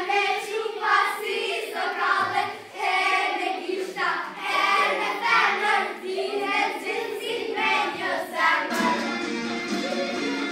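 A group of girls singing a folk dance song together, unaccompanied, in short repeated phrases.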